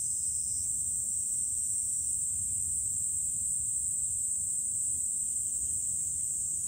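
Steady outdoor ambience: an even high-pitched hiss over a low, shifting rumble of wind on the microphone.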